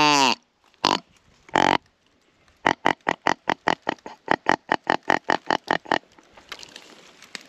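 Deer grunt call blown in a buck-grunt sequence. One longer grunt drops in pitch at its end, then come two short grunts and a fast string of short grunts, about six a second for some three seconds. Faint rustling follows near the end.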